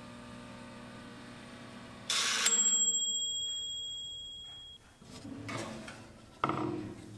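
A Black+Decker convection toaster oven runs with a steady hum. About two seconds in its timer dings, the bell ringing out and fading over a couple of seconds as the timed bake ends and the hum stops. Near the end come knocks and a clatter as the oven door is opened.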